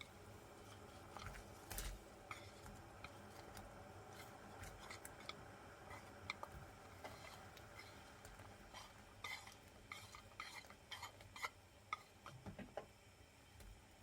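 Faint, irregular clinks and taps of utensils against dishes, such as stirring or handling food in a kitchen, more frequent in the second half.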